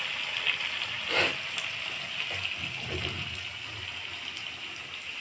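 Chicken and potato curry sizzling in an aluminium kadai on an induction cooktop: a steady crackling hiss, with one short louder scrape or knock about a second in.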